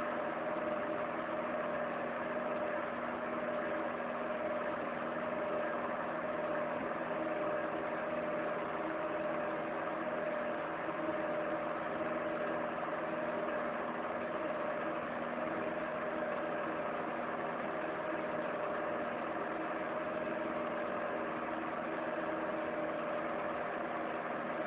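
A steady machine hum with a constant mid-pitched tone over a soft noisy whir, unchanging throughout.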